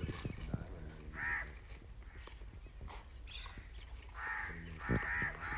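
Crows cawing: a harsh caw about a second in, then a run of several caws near the end.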